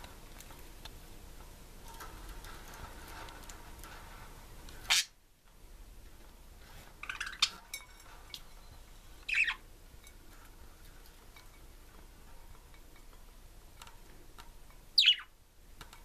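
Budgerigars chirping: short, loud calls that sweep quickly down in pitch, about five seconds in, a small cluster around seven seconds, one near nine seconds and one near the end, over faint scattered ticking.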